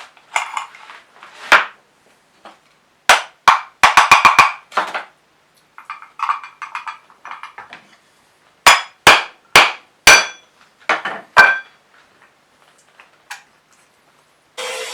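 Hammer tapping a wooden dowel into a drilled joint: sharp knocks in groups, a quick run of several around the middle of the first half and a slower series of about six later, with wooden pieces being handled in between. A motor starts up just before the end and runs steadily.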